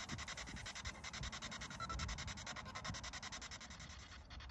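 P-SB7 Spirit Box radio sweeping through stations, giving a steady hiss of static chopped into rapid, even pulses.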